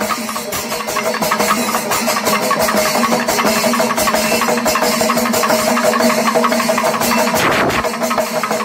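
Panchavadyam temple ensemble playing: a steady held drone over quick, light, rapid strokes, between louder passages of heavy drumming and cymbals.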